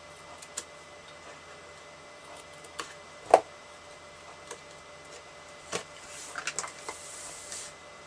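Small scissors snipping tabs off red cardstock in a few sharp separate clicks, with one much louder clack a little over three seconds in. Near the end, a cluster of clicks and a brief rustle of card being handled and slid across the mat.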